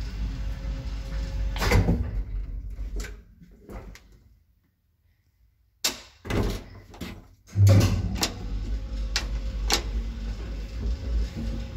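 1965 KONE traction elevator: a steady low running hum ends with a loud clunk about two seconds in, and clicks fade to near silence. A sharp click comes as the P button is pressed about six seconds in, then a few more clicks. A heavy thump sounds near the eight-second mark as the car starts off, and its low running rumble carries on with scattered clicks.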